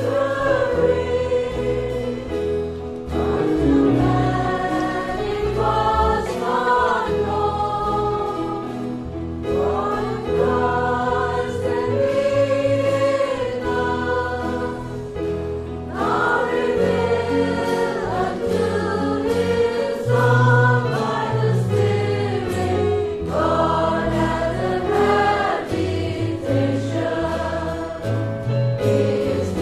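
A choir singing a Christian worship song in sustained, gliding phrases over steady low accompaniment.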